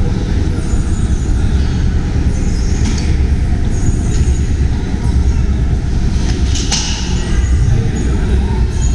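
Steady low rumble of a moving vehicle, with a couple of brief clicks or rattles, one about three seconds in and a sharper one near the end.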